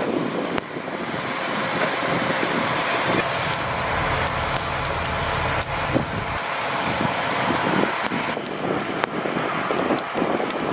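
Heavy-duty tow wreckers' diesel engines running steadily, with a deeper rumble swelling for a couple of seconds about four seconds in and scattered sharp metallic clicks.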